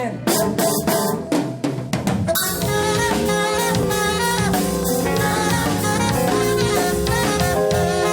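A live band's drum kit plays a fill of sharp snare and bass-drum strokes for about two seconds, then the full band comes back in with bass, drums and held chords.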